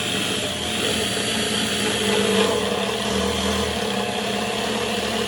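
Electric drill running steadily at low speed, turning the oil pump of an LT1 383 small-block Chevy to prime its oil system before pressure builds.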